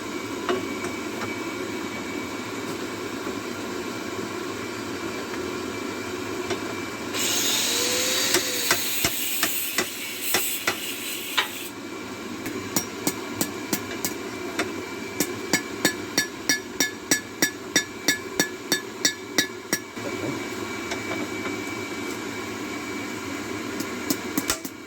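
Hammer striking hot steel on an anvil: a few scattered blows, then a steady run of ringing strikes about three a second lasting several seconds. Before the run a loud hiss lasts a few seconds, and a steady hum runs underneath.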